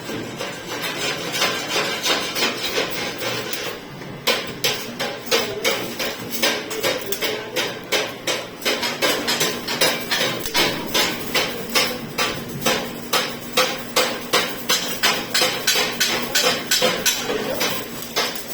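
Arc welding in the vertical position: the arc crackles and sputters steadily, then from about four seconds in it pulses in sharp regular beats about twice a second.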